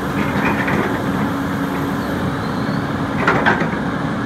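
2003 John Deere 330C LC crawler excavator's Tier 2 Deere diesel engine running steadily as the machine is worked, a constant hum. A couple of short, sharp clanks come about three seconds in.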